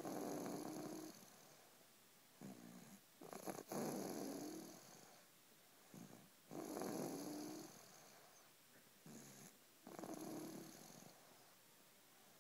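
Snoring in a slow, even rhythm, about one breath every three seconds. Each breath has a short, softer snore followed by about a second of louder snore.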